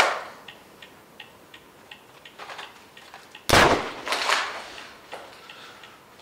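Faint, steady ticking, about three ticks a second, broken by one loud, sudden bang or thud a little past halfway, with a short burst of noisy rustle after it.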